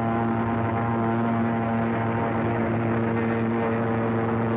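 Propeller-driven fighter planes' piston engines droning steadily in flight, as in an aerial dogfight.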